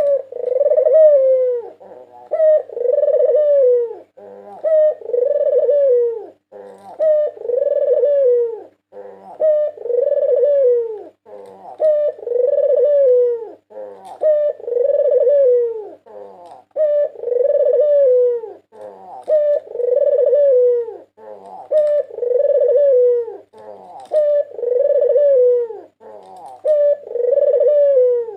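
White Barbary dove (puter putih) cooing over and over: each phrase is a short note followed by a long, falling coo, repeated evenly about once every two and a half seconds.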